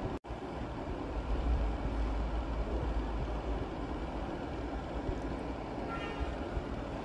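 Water running from a tap into a stainless steel sink while steel pots are washed, over a steady low rumble. The sound drops out for a moment near the start, and there is a faint metallic ring about six seconds in.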